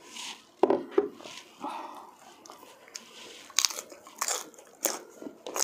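Two sharp knocks near the start, then crisp crunching bites into a green pepper, about four bites, each a little under a second apart, from a bit past halfway, close to the microphone.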